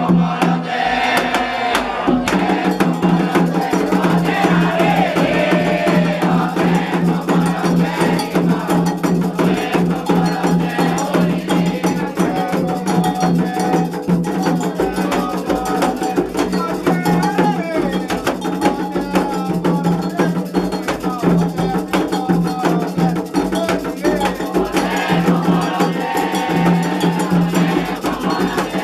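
Candomblé ritual music: atabaque hand drums and an agogô iron bell keep a steady, dense rhythm while voices sing over them.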